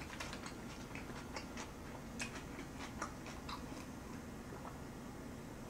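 Faint chewing: soft, irregular wet clicks of a mouthful of food being chewed with the mouth closed.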